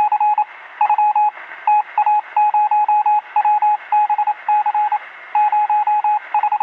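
Morse-code-style beeping: one steady tone switched on and off in quick runs of short and longer beeps, with a thin, radio-like sound over a faint hiss.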